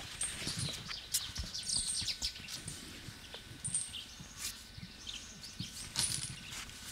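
Small birds chirping and twittering in short high calls, with scattered soft knocks and rustling close by.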